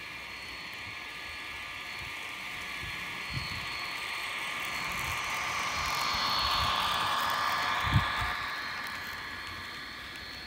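H0 scale model of a DSB MZ IV diesel locomotive hauling freight wagons, its electric motor and wheels running along the track in a steady whirr that grows louder as the train passes close and then fades. A short low thump sounds about eight seconds in.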